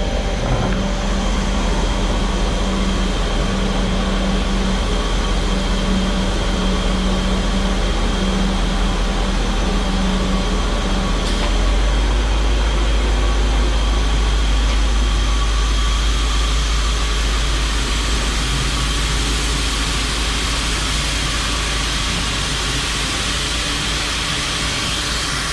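Grain truck's engine running steadily with a deep drone that gets a little louder about halfway through.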